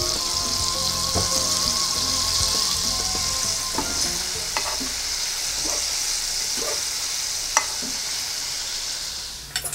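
Flour-coated smelt frying in hot oil in a saucepan: a steady sizzle that starts as the fish go in, with a few clicks of a fork stirring them. The sizzle drops away just before the end.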